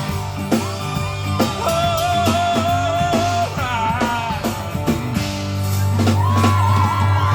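Live country band playing an instrumental passage: a lead guitar carries the melody with sliding, bending notes over drums and a steady bass.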